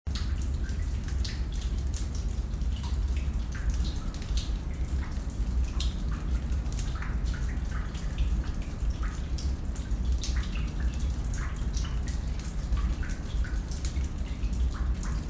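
Water dripping in a cave: many irregular drops plinking into pools, some with a short pitched plip, echoing over a steady low rumble.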